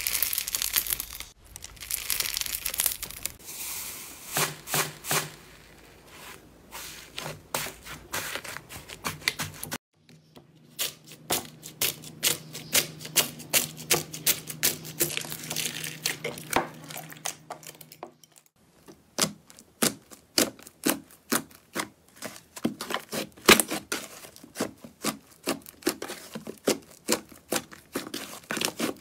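Hands working slime, giving dense sticky crackles, clicks and soft tearing sounds. A fluffy slime is squeezed and pulled apart, then a foam-bead slime is pressed in a tray, then a thick slime is stretched.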